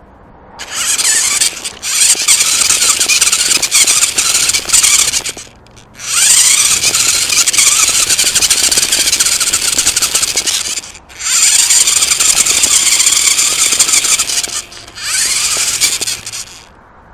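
Toy RC car's small electric motor and gears whining loudly at full throttle in four runs of a few seconds each, cutting out briefly between them; the pitch rises as the motor spools up at the start of the second run.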